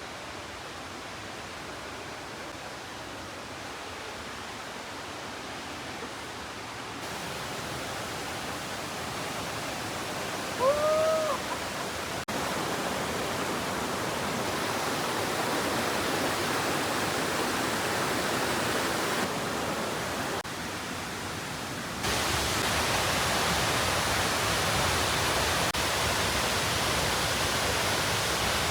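Steady rush of a 40-foot waterfall, getting louder in a few sudden steps. About eleven seconds in, one short call rises and falls in pitch above the rush.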